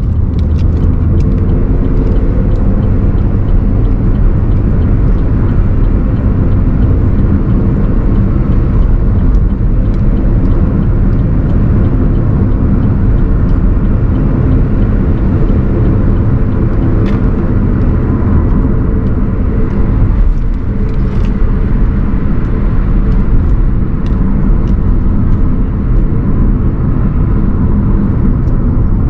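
Car on the move: a steady, loud engine and road rumble, with a few faint ticks above it.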